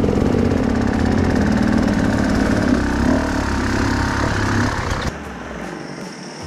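Enduro dirt bike engine running at low revs as it creeps along a rough trail, heard close up from the rider's own bike. About five seconds in the sound cuts abruptly to a quieter scene with a motorcycle engine further off.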